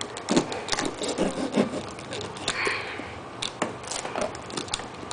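Fingers picking and scratching at the sealing sticker on a cardboard laptop box, giving scattered clicks and scrapes, with a longer scrape about two and a half seconds in.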